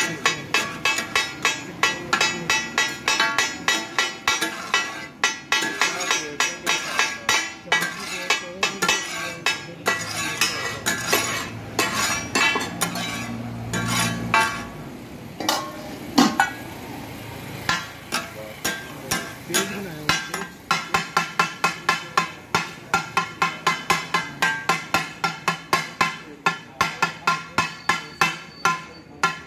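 Flat metal spatula blades chopping mutton offal on a metal griddle for takatak: rapid rhythmic metallic clanging. It is sparser in the middle and quickens near the end to about three or four strikes a second.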